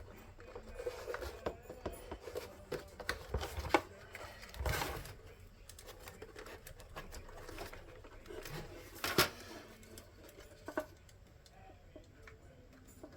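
Scattered light clicks and taps of small plastic switch parts being handled and pressed together, with a louder rustle about five seconds in and a sharp click about nine seconds in.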